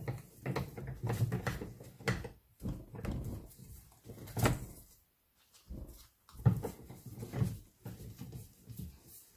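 Classic Mini rear suspension trumpet, seized to its rubber cone-spring donut, being wrenched back and forth in a vise: irregular creaks and knocks, with a sharper knock about four and a half seconds in. The donut's metal ring is rusted onto the trumpet.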